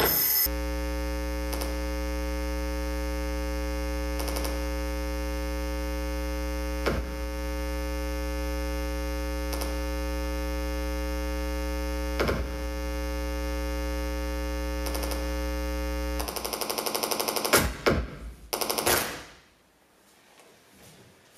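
Electronic stage soundtrack: a dense, steady drone of many held tones over a low hum, with a soft click every few seconds. About sixteen seconds in, it breaks into a rapid, loud stuttering pulse. The pulse cuts out to near silence shortly before the end.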